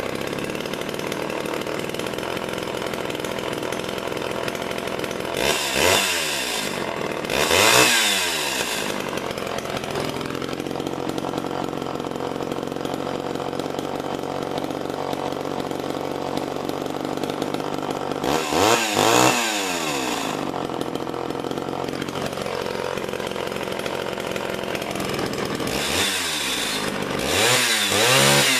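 Homelite two-stroke chainsaw idling steadily and revved briefly several times. Its carburetor jets have just been leaned out and its idle speed raised because it tended to stall at idle, and now it keeps running.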